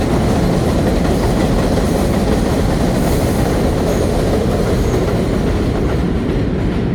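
New York City subway train running along the track: a loud, steady rumble with the clatter of wheels on rails.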